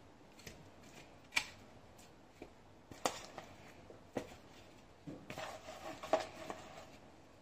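Oiled, seasoned potato wedges being laid one by one onto a baking pan by hand, giving soft scattered taps about a second apart. Between about five and six and a half seconds in, a hand rummages through the wedges in a plastic bowl, making a brief run of small clatters.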